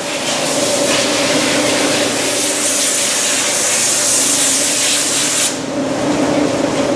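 Bow-factory machinery noise: a steady hum under a high hiss. The hiss swells about two and a half seconds in and cuts off suddenly about five and a half seconds in.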